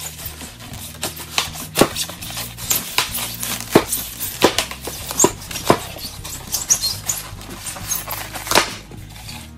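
Machete blade sawing and hacking through a thick pink foam insulation board, making a run of irregular sharp crunching scrapes, about two a second.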